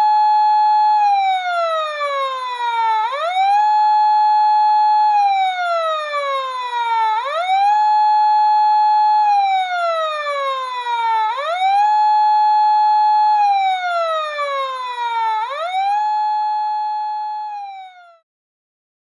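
Fire truck siren wailing in a repeating cycle: the pitch jumps up quickly, holds a high note for about a second, then slides slowly down, about every four seconds. It cuts off abruptly near the end.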